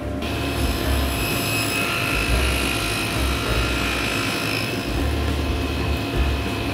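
Table saw with a dado stack running steadily with a constant high whine while a small wooden panel is fed along the fence, cutting a groove for a box base.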